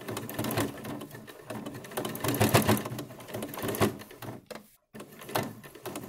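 Sewing machine stitching the binding that forms the wire channel on a cloth face mask. It runs steadily, stops for a moment about four and a half seconds in, then starts stitching again.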